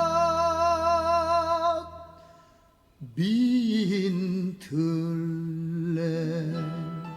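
A singer holding a long note with vibrato that fades out about two seconds in. After a short pause a new phrase begins with a rising swoop into long, sustained sung notes.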